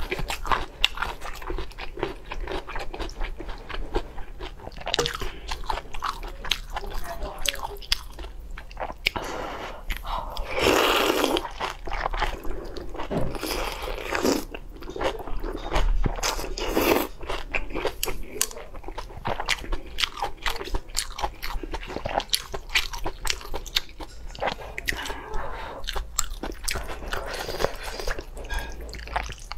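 Close-miked biting and chewing of spicy hot pot meat and bok choy: a steady run of sharp crunches and wet mouth clicks, with a few louder stretches about eleven and seventeen seconds in.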